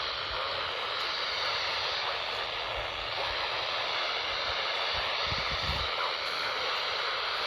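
Steady static hiss from a weather-band radio receiver on a weak signal, the broadcast alert voice lost in the noise. A few brief low rumbles come about five seconds in.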